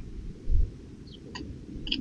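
Low rumble with a dull thump about half a second in, then two small sharp clicks near the end, typical of a squirrel gnawing at a nut. A faint bird chirp falls in pitch about a second in.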